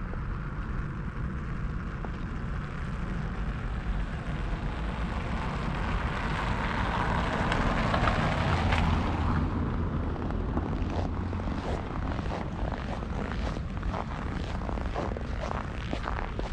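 A car driving past on a snowy street, its tyre and engine noise swelling to a peak about eight seconds in, then fading. Footsteps then crunch in snow, a little over one step a second.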